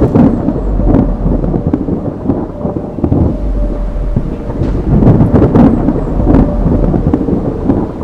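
Loud, rolling thunder over rain: a cinematic storm sound effect, with the low rumble swelling again and again.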